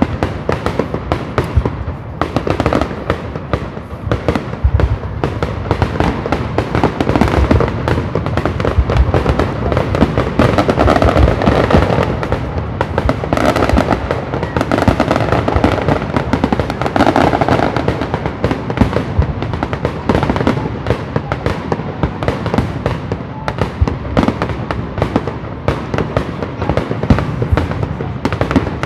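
Professional fireworks display: many shells bursting in quick, continuous succession, with music playing beneath.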